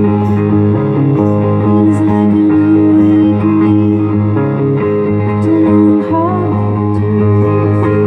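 Amplified electric guitar played solo, sustaining notes with an upward bend about six seconds in.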